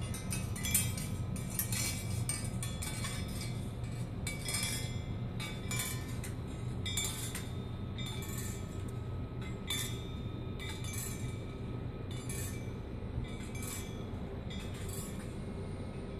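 Wind chimes ringing irregularly, the strikes coming every half second or so and thinning out toward the end, over a steady low rumble of wind.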